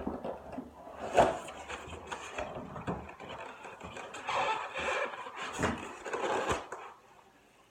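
Handling noises from unpacking: a string of knocks and clicks with rustling of packaging, stopping about seven seconds in.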